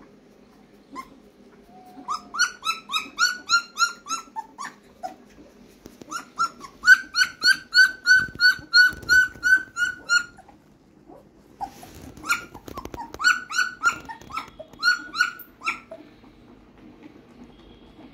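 Two-week-old German Shepherd puppies crying: rapid high-pitched squeaking cries, about five a second, in three bouts of a few seconds each.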